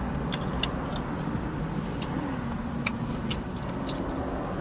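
Steady low rumble of a parked car's cabin, with scattered small lip smacks and mouth clicks from a man suffering through very hot wings, and a faint low hum from about two seconds in.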